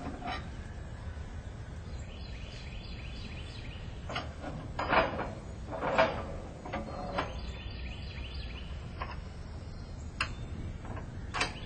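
Scattered metal clanks and knocks from the steel frame of a tree stand and its trailer being handled and set into place, the two loudest about five and six seconds in, over a steady outdoor background noise.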